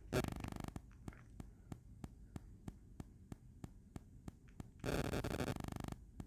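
Electrical interference on the recording: faint regular clicks about three times a second, with two short buzzing bursts, one just after the start and one about five seconds in.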